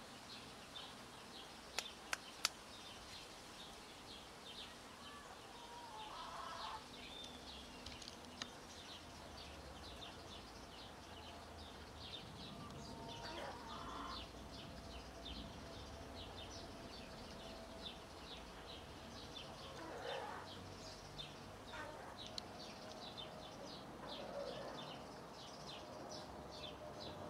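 Faint outdoor background of small birds chirping rapidly and continuously, with a couple of sharp clicks about two seconds in.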